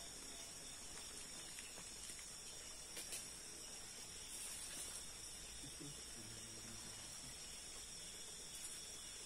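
Night insects such as crickets chirring steadily at a high pitch, with a faint click about three seconds in.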